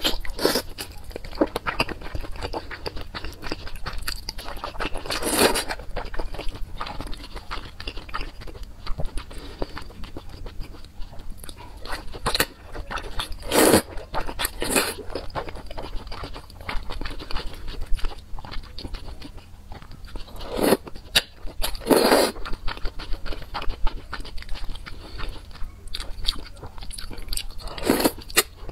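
Close-up eating of slippery, spicy, jelly-like strips: wet chewing and smacking, broken by about half a dozen louder, short sucking slurps as pieces are drawn into the mouth.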